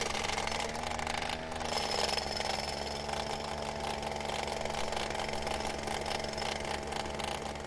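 A chisel cutting a cable chase down a plaster wall: rapid, continuous hammering with a steady hum under it.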